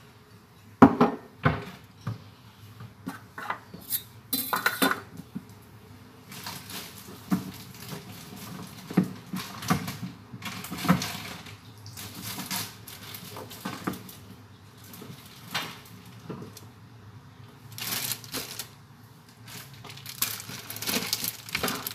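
Kitchen crockery and utensils clinking and knocking on a countertop as a ceramic cup and other things are picked up and set down. There is a sharp knock about a second in and scattered clinks after it. Near the end comes some plastic rustling as a bag of ground coffee is handled.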